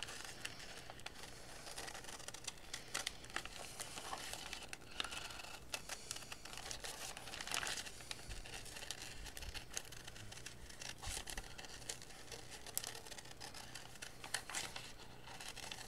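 Scissors snipping through a sheet of wax paper with melted crayon fused between its layers, the stiff sheet crinkling as it is held and turned. The snips and crackles come irregularly.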